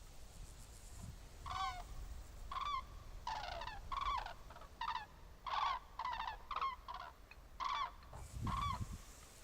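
Large birds honking: about ten short calls in an irregular series, each rising and falling briefly in pitch.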